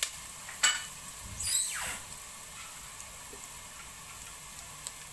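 Onions and ginger-garlic paste sizzling steadily in hot oil in an aluminium pot. A wooden spatula knocks against the pot once under a second in, and a short squeal falls steeply in pitch at about one and a half seconds as it scrapes.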